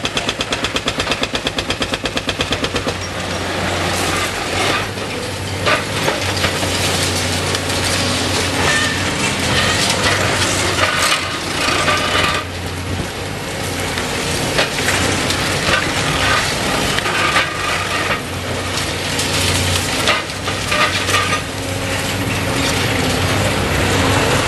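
Hydraulic breaker hammering rapidly on concrete, stopping about three seconds in. After that a Caterpillar excavator's diesel engine runs steadily while concrete cracks and crunches and rubble knocks down at irregular intervals.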